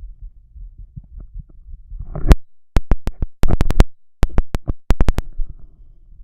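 Sound through a stethoscope on a bare chest: a low, muffled rumble with faint heartbeat thumps, then a rapid run of loud sharp clicks and knocks from the chestpiece being handled and moved. Near the end the low rumble returns.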